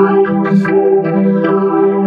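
Effects-processed logo jingle: sustained, organ-like synthesizer chords. It cuts off sharply at the end.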